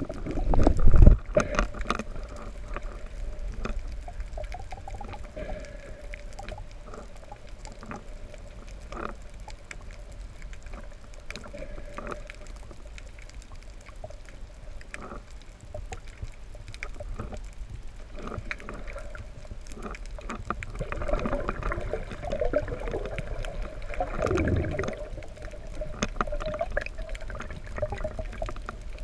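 Underwater sound on a free dive: a loud rush of water in the first second, then a steady mid-pitched hum that wavers slightly, with scattered clicks and a sweep falling in pitch near the end. The uploader wonders whether a manta ray is making the noise.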